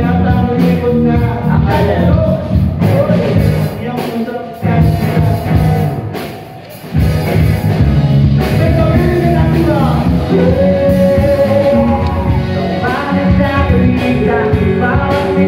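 Live rock band playing loud through a PA, electric guitars and drums with a man singing. The band drops to a quieter passage about a third of the way in, then comes back in full, with the vocal line prominent in the second half.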